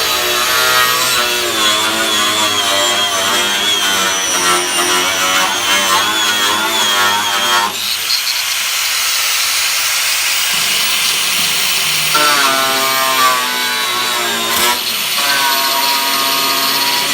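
Power tool running loudly, its pitch wavering as it works under load. It drops to a high hiss for a few seconds in the middle, then picks up again.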